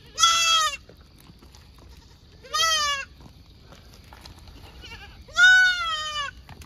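Goat bleating three times in short, high-pitched calls a couple of seconds apart; the last call, near the end, is the longest and loudest.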